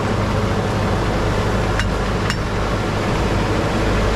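Nilgiri Mountain Railway steam locomotive standing with steam blowing off in a loud, steady hiss over a constant low hum. Two sharp metallic clinks come about two seconds in.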